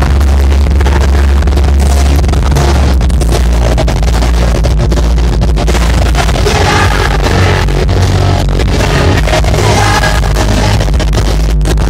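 Live rock band playing loud through a concert PA, heard from within the crowd on a phone, with heavy bass and a lead vocal coming in about halfway through.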